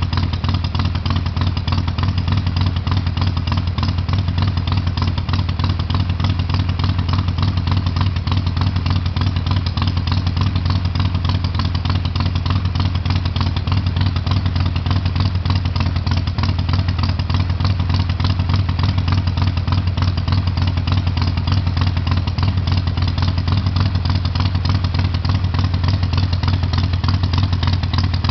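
Harley-Davidson V-twin motorcycle with Screaming Eagle exhaust pipes idling steadily, loud and low-pitched, with no revving.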